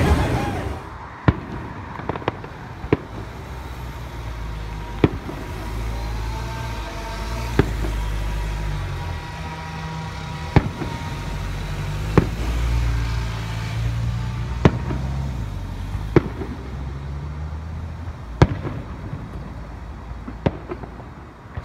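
Fireworks bursting: about a dozen sharp bangs, one every one to two and a half seconds, over a steady low rumble.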